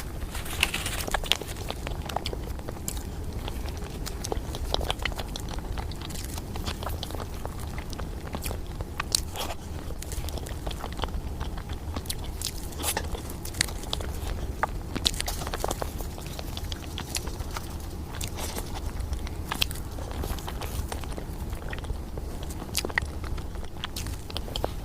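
Close-miked eating of chocolate mousse cake: continuous chewing and biting with scattered sharp mouth clicks, over a steady low hum.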